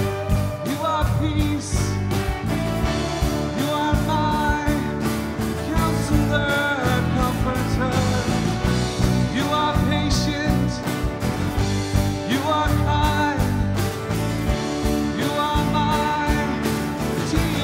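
Worship song from a church band: singing over the band with a steady beat.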